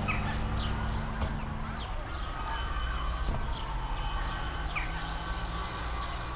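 Birds chirping in short, quick falling calls over a steady background hum, while the last held low notes of the song fade out about two seconds in.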